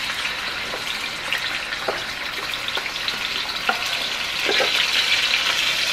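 Uncooked rice frying in hot garlic oil in a pot, sizzling steadily as the grains go in, with a few light clicks scattered through it. The sizzle grows louder about four and a half seconds in.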